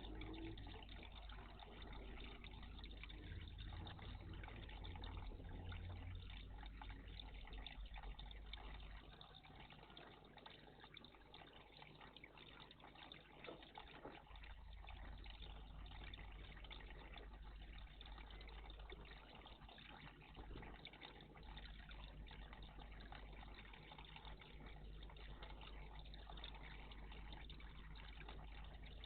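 Faint, steady trickle of water in a garden bird bath, with a low hum underneath.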